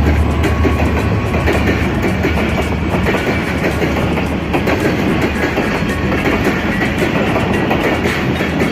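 Pakistan Railways train 25 passing close by, hauled by an HGMU-30 diesel locomotive. A low engine rumble fades over the first second or two, then the carriages roll past with a steady wheel rumble and rail-joint clatter.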